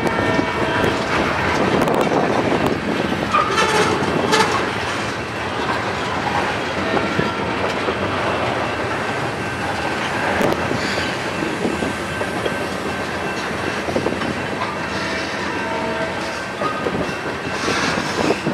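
A freight train's tank cars rolling past, their steel wheels clacking over rail joints in a steady run, with thin high squeals from the wheels now and then.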